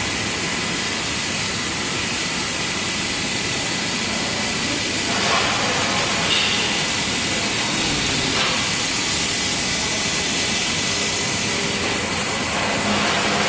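Cap strip slitting machines for car tyres running together: a steady mechanical hiss and hum with a faint, steady high-pitched whine.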